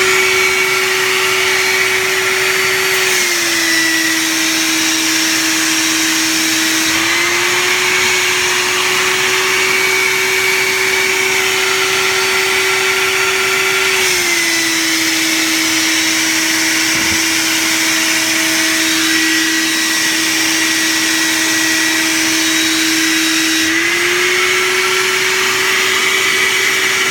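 Vacuum cleaner running steadily, sucking lint out of a clogged dryer vent duct. Its hum steps down slightly in pitch about three seconds in and again about halfway through, each time rising back a few seconds later.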